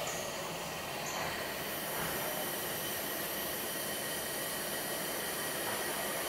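Passenger train running on the rails: a steady noise of wheels on track, with a faint thin whine held above it.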